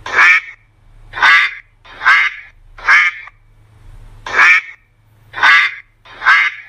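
Duck quacking: seven short quacks, about one a second.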